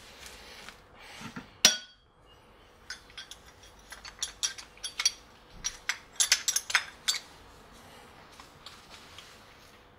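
Steel gears, gear shafts and shift forks of a BE4 gearbox clinking and knocking together as they are handled and lifted out of the casing. One loud clink comes near the start, then a quick flurry of clinks and taps over the next few seconds, thinning out near the end.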